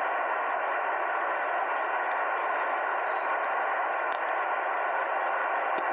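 Shortwave receiver hiss: steady band noise on an open 40-metre single-sideband voice frequency while no station transmits, with a few faint clicks.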